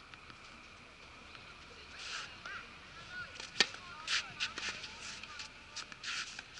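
Tennis racket striking the ball on a serve: one sharp crack about three and a half seconds in, the loudest sound. Several shorter, softer scraping noises come before and after it.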